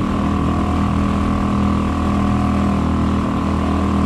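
Suzuki outboard motor on a kayak running steadily at speed, with the rush of water from its wake.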